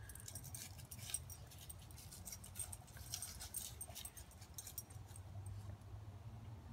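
Rapid light clicking and crackling, as of dry fallen leaves being stirred, with a faint metallic jingle, over a low steady rumble.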